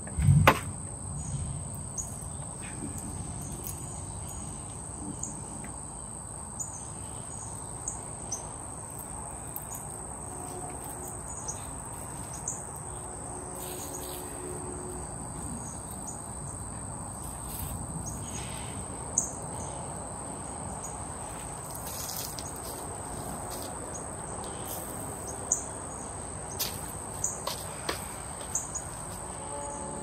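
Insects trilling steadily at a high pitch, with scattered small knocks and scrapes as soil and gravel around a newly set shrub are worked by hand; one louder thump right at the start.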